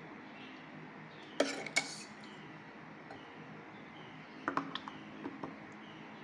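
Steel ladle clinking against the steel pot and the plastic mould while custard mix is ladled into a kulfi mould: two sharp clinks about a second and a half in, then a cluster of lighter taps near the end.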